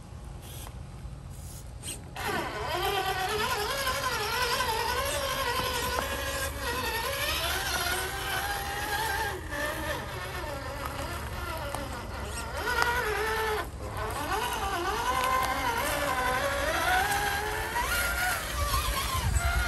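Whine of a Traxxas TRX-4 RC crawler's electric motor and geared drivetrain, starting about 2 s in and rising and falling in pitch as the throttle changes while it crawls. It cuts out briefly once, near the two-thirds mark.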